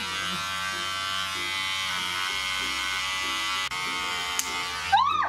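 Electric hair clipper running steadily with a low buzz as it cuts close at the side of the head, its guard set to 1. There is a short click about three and a half seconds in.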